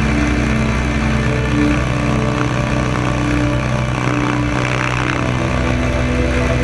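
Boeing Stearman biplane's radial engine running steadily in flight.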